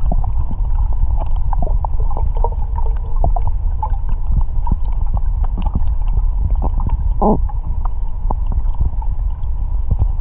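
Underwater sound in a swimming pool picked up by a submerged camera: a steady low rumble with scattered bubble pops and clicks, one stronger pop about seven seconds in.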